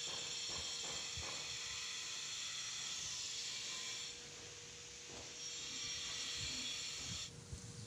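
Steady high-pitched buzzing chorus of insects, with a few faint taps and rustles underneath. The buzz thins about halfway through and cuts off abruptly near the end.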